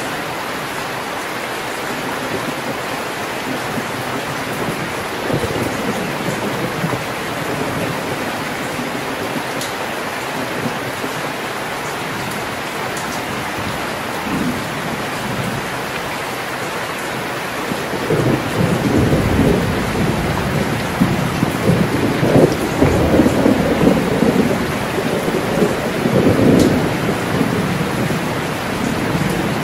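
Heavy rain pouring steadily. About two-thirds of the way in, a long rumble of thunder swells and wavers for about ten seconds before dying back to the rain.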